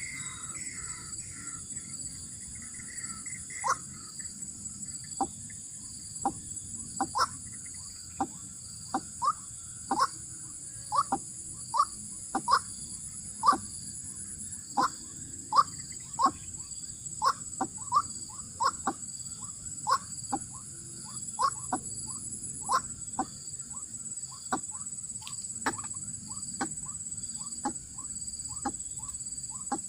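White-breasted waterhen (ruak-ruak) giving short, sharp calls again and again, about one or two a second, over a steady high-pitched chorus of insects.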